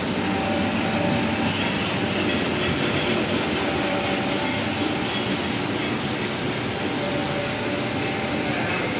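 Box punching machine running, with its electric drive motor and large flywheel turning and making a steady, dense mechanical noise. Faint whining tones come and go over it.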